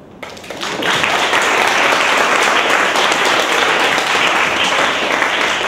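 An audience claps in applause. It starts about half a second in, swells quickly, then holds steady.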